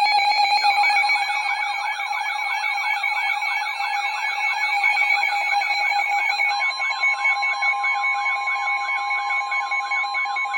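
Emergency Alert System alert tones: several electronic alarm tones sounding together, a steady tone with fast warbling siren-like sweeps over it, and another steady tone joining about six and a half seconds in.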